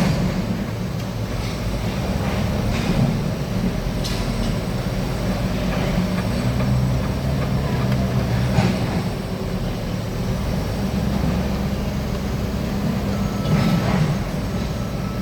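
Small excavator's diesel engine running steadily under work, with a few clanks about four, eight and fourteen seconds in.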